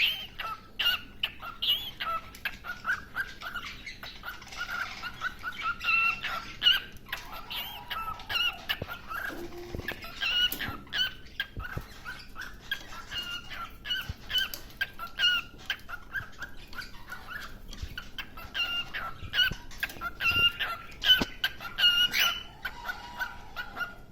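Cockatiel singing: a long run of short, repeated whistled chirps.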